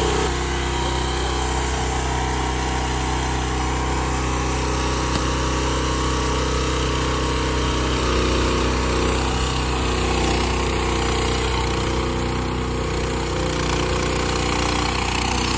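Engine of a Mach Pro MPS 30 mini skid steer running steadily at a constant pitch.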